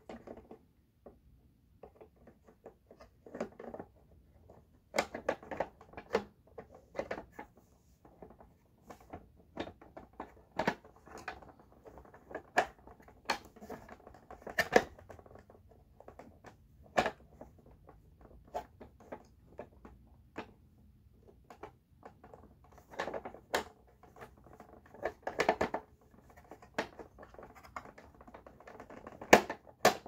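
Irregular clicks, knocks and scraping as the parts of a Dirt Devil Dynamite Plus vacuum's height-adjuster wheel are handled and worked back into place; the vacuum's motor is not running.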